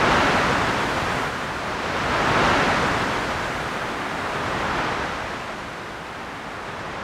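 Ocean surf washing on a beach: a steady hiss of waves that swells three times, each about two and a half seconds apart, then fades away near the end.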